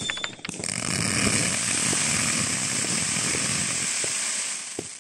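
A 450-shot, 0.5-inch firework cake firing, its shots so rapid that they run together into one continuous loud hissing crackle for about four seconds, after a few separate pops at the start, and dying away near the end.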